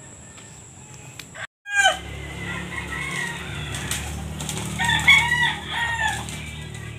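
Two roosters fighting, with short repeated clucks and squawks starting about a second and a half in and loudest around five seconds in.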